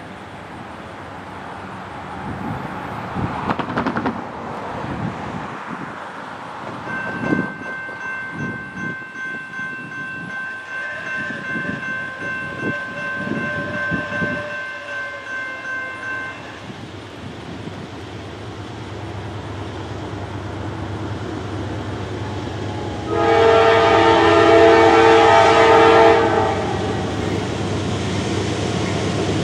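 Norfolk Southern GE AC44C6M diesel locomotive approaching, with a low rumble building steadily. Its air horn sounds one loud, steady blast of about three seconds near the end, after a fainter held tone in the middle.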